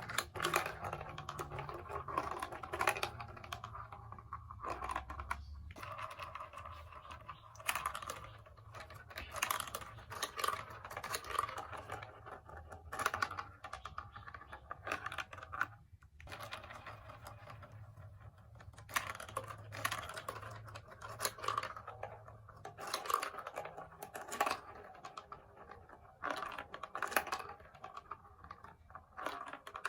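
Plastic marble run pieces clicking and clattering in quick, irregular runs of small taps, with a few short pauses.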